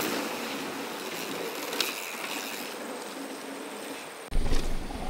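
Mountain bike rolling down a dirt trail: a steady hiss of tyres and air, with a single click a little under two seconds in. A sudden low rumble starts about four seconds in.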